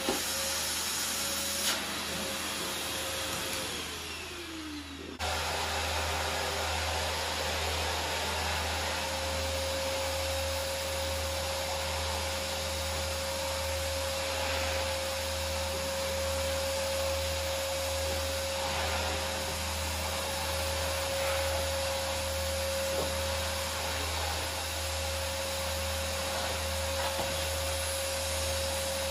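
Canister vacuum cleaner running with a steady whine over the whole floor-cleaning pass. A few seconds in, its motor pitch sinks and the sound drops a little, then it comes back abruptly at full strength and runs on steadily.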